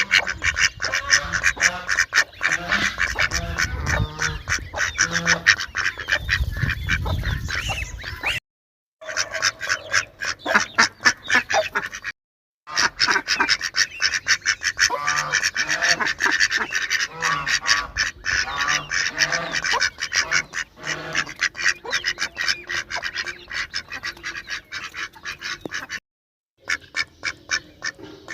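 Ducks quacking loudly and continuously, many calls overlapping in quick succession, broken by three short dead-silent gaps where the recording is cut.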